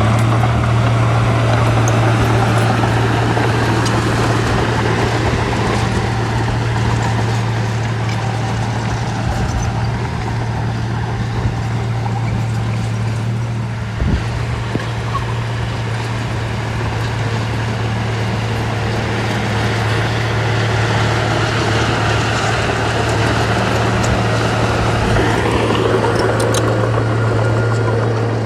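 Heavy construction machine's engine running steadily with a strong low hum. There is a short knock about halfway through and a brief rising whine near the end.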